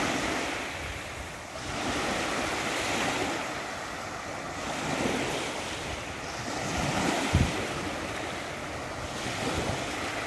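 Small waves breaking and washing up a sandy beach, the surf swelling and fading every two to three seconds. Wind buffets the microphone briefly about seven seconds in.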